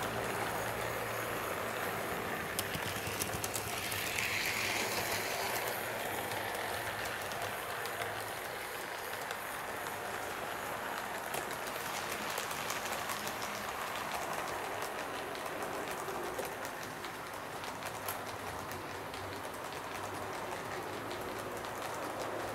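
Fleischmann HO-scale BR 39 model steam locomotive and its coaches running on the track: a steady running noise from the electric motor and the wheels on the rails, with small clicks throughout.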